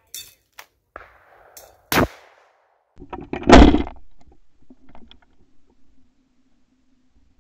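Shotgun shots at flying doves: a sharp crack about two seconds in, then a much louder, deeper shot about a second and a half later that fades slowly. A few small clicks come before them.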